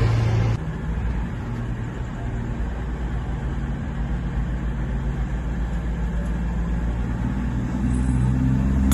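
Train engine rumbling low and steady, growing louder near the end; a louder noise cuts off about half a second in.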